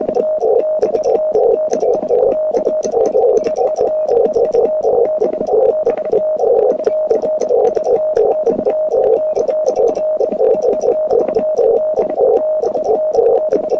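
Morse code from a ham radio transceiver on the 20-metre CW band: a single tone of about 600 Hz keyed on and off in quick dots and dashes, over a narrow band of receiver hiss, with faint clicks.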